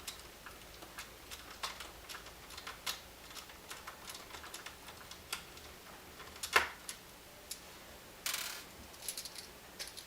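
Small scattered clicks and taps of hands handling a laptop's plastic casing, screwdriver and screws. There is a louder sharp click about six and a half seconds in and a brief scrape just after eight seconds.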